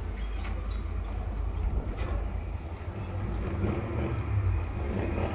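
Distant jet noise from a formation of BAE Hawk jet trainers flying past: a steady low rumble that swells a little past halfway.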